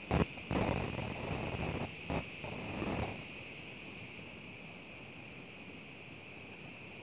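A chorus of cicadas buzzing steadily in the pines, a high continuous drone. A few footsteps and rustles on dry forest litter sound over it in the first three seconds.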